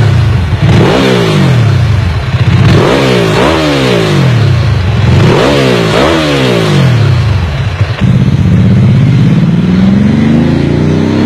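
Ducati 999 superbike's L-twin engine revved in sharp blips, about five times, the pitch falling back after each. About eight seconds in, it pulls away in a long steady rise in pitch as it accelerates.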